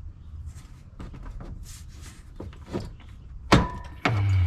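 Hand tools working on the engine's hose and thermostat housing: scattered light clicks and knocks, then a sharp metal clank about three and a half seconds in and another ringing clink just after.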